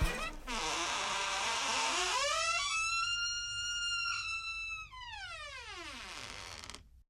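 Hinges of an old wooden door creaking as the door swings: one long creak with a clear pitch that rises over about two seconds, holds steady, then slides down and stops shortly before the end.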